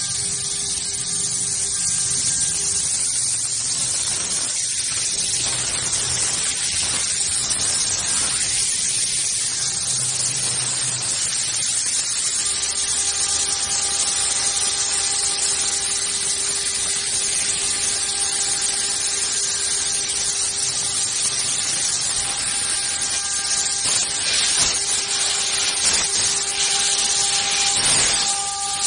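Heavy-duty 1325 CNC wood router's spindle running with its bit cutting through a wooden sheet: a steady whine under a loud constant hiss, with a few rougher, louder bursts near the end.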